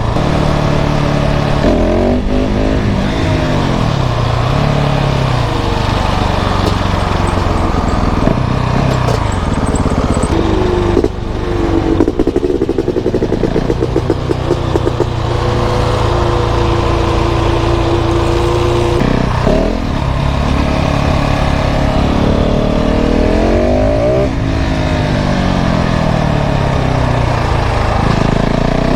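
Single-cylinder KTM 690 SMC R supermoto engine with a full LeoVince exhaust, heard from onboard, revving up and dropping back again and again as it pulls through the gears and slows for bends. A choppy, stuttering stretch about twelve seconds in.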